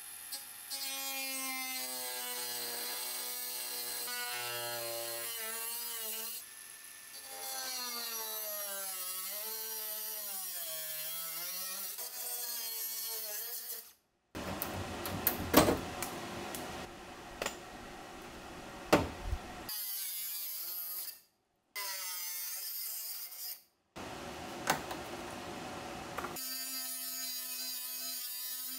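Power tools cutting, in several short clips separated by abrupt breaks: first a whining tool whose pitch sags and recovers under load, then a rougher grinding noise with sharp clicks.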